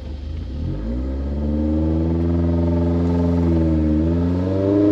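Fiat X1/9's mid-mounted inline-four engine, heard from inside the cabin, pulling away from idle: its revs climb from about half a second in, hold, dip briefly a little before the end and climb again.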